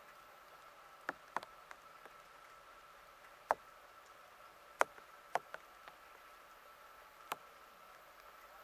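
Scattered sharp ticks, about eight at irregular intervals, over a faint steady high-pitched whine.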